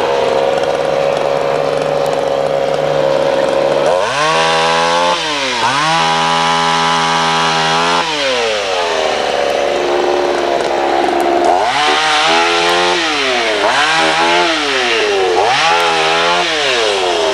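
Two-stroke chainsaw running, revved up about four seconds in and held at full speed for a few seconds, dropping back to idle, then revved up and down three more times near the end.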